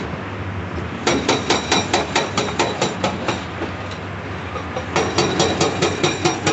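Hydraulic breaker on a CAT 349E excavator hammering rock in two runs of rapid blows, about five a second, with a metallic ring. The first run starts about a second in, and the second follows after a pause of a second and a half. The excavator's diesel engine runs steadily underneath.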